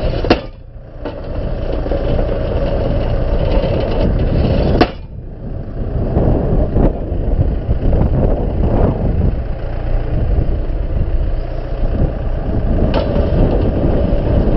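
Tractor engine running steadily while powering a tractor-mounted hydraulic post driver. Sharp knocks ring out about a third of a second in and again about five seconds in, with a few fainter knocks later.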